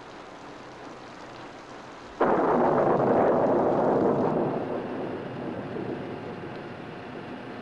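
Steady rain, then a sudden thunderclap about two seconds in that rumbles on and slowly fades.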